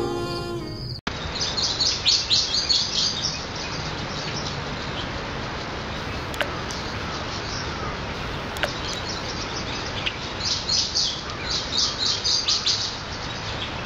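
Sad string music cuts off about a second in. Small birds then chirp in rapid high twittering runs, first early and again near the end, over a steady background hiss, with a couple of faint clicks in between.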